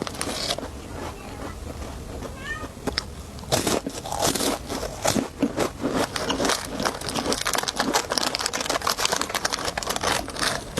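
Plastic snack packaging crinkling and crackling in dense, irregular bursts, busiest from a few seconds in. About two seconds in there is one short high call, like a cat's meow.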